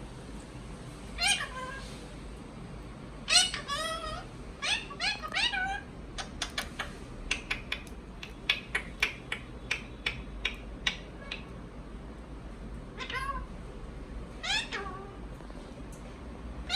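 Ringneck parakeet making pitched, meow-like calls: one call, then a quick string of about six, then a run of short sharp clicks in the middle, and two more calls near the end.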